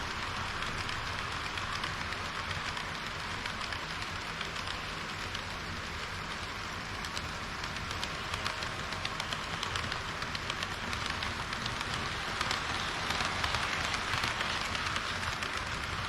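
HO-scale model train running on its track, heard close up: a steady, dense rattle of metal wheels on rails with many fine clicks, getting a little louder over the last few seconds.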